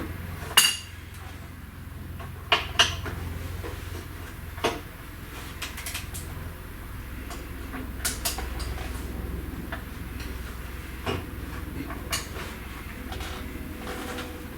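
Hand tools clanking and clinking against metal while a bolted car part is worked loose. A sharp ringing metal clank about half a second in is followed by scattered knocks and clinks, all over a low steady hum.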